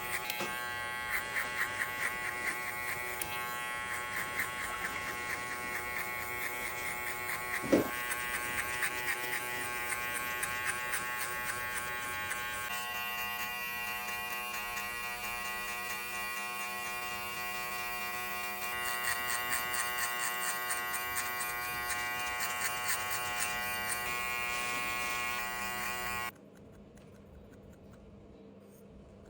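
Electric hair clippers buzzing steadily as they cut a men's fade with a lift-and-push stroke, with one sharp knock about eight seconds in; the buzz cuts off near the end.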